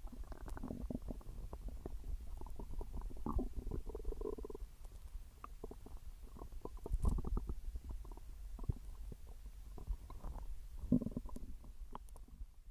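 Stomach growling: a continuous low rumble broken by irregular gurgles, with a longer held gurgle about four seconds in and louder bursts of gurgling around seven and eleven seconds in.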